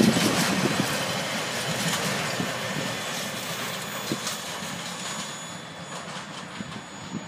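Empty flat wagons at the tail of a long freight train rolling away, their wheels clattering over the rails, the sound fading steadily as the train recedes.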